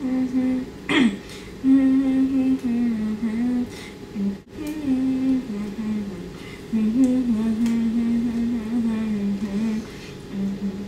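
A young woman humming a song's melody with her lips closed: a string of held notes stepping up and down, broken by short pauses.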